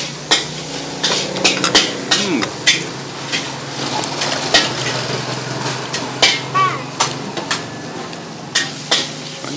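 Irregular clinks and knocks of metal utensils against pans and dishes, over a steady background hiss.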